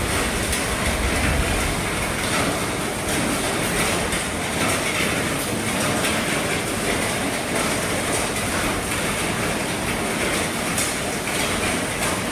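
Heavy rain falling steadily on an RV roof, a dense, even patter of drops.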